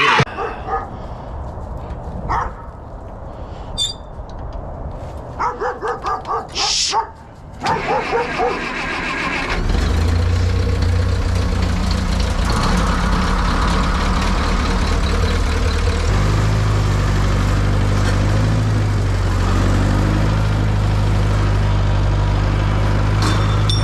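Skid steer engine starting from cold, which the owner calls notoriously hard to start in chilly weather. After some short, uneven sounds, the engine catches about ten seconds in and runs steadily, its note shifting about sixteen seconds in.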